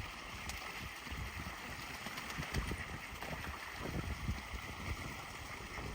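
Wind buffeting the microphone over a steady watery hiss, with light splashing from ducks bathing and dunking themselves in a pond.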